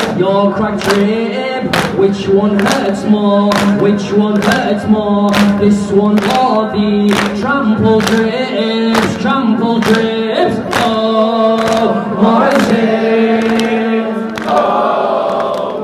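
A male reciter chanting a Shia latmiyah lament into a microphone, holding long drawn-out notes. Under it the congregation beats their chests in unison, a sharp slap about once a second.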